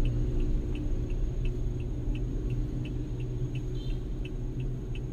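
Car interior: a steady low hum of engine and road noise, with a turn-signal indicator ticking evenly about three times a second.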